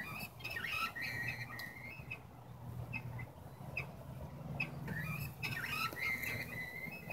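Squeaky, chirping sounds from the moving elf figures' mechanisms in an animated Christmas workshop display. One run of squeaking lasts about a second near the start and another comes near the end, with light ticks and clicks between.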